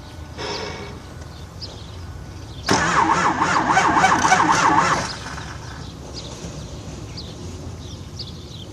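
Engine cranking on its starter motor for about two seconds, the starter's whine rising and falling with each compression stroke, then cutting off without the engine catching: a failed start.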